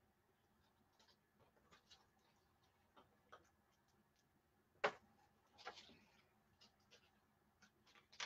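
Near silence with scattered faint clicks and taps. The clearest is a sharp one about five seconds in, with a couple more just after it and one near the end.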